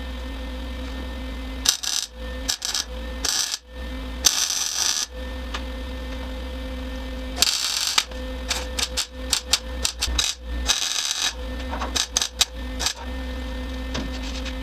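Series of short, crackling bursts of uneven length, typical of MIG tack welding on sheet metal, over a steady electrical hum.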